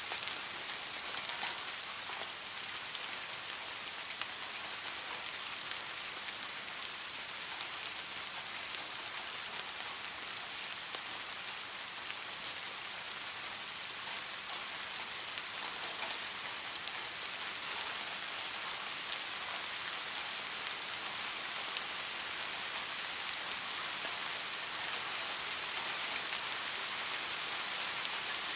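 Steady rain falling on a surface, with scattered droplet ticks over an even hiss.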